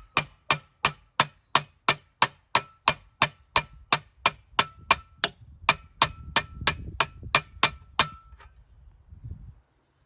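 Hammer striking a metal mounting plate about three times a second, each blow ringing, as a cut tab of the plate is beaten over to bend it. The blows stop about eight seconds in.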